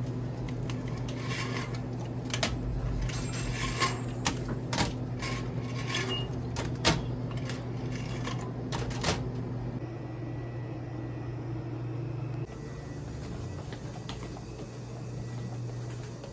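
A steady low hum under a quick run of clicks and knocks from small objects being handled; the knocks thin out about ten seconds in, leaving the hum.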